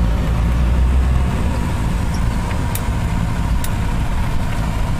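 Car engine and road noise heard from inside the moving car's cabin: a deep, steady rumble that eases about a second in, with a couple of faint ticks.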